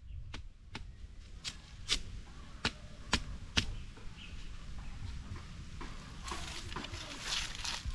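A machete striking a bamboo pole: about seven sharp chopping knocks, roughly one every half second, through the first few seconds. Near the end comes a longer scraping rustle.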